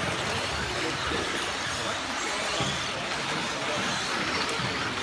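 Radio-controlled off-road buggies racing around a track: a steady mix of motor whine and tyre noise, with faint rising and falling whines as the cars speed up and slow down, echoing in a large hall.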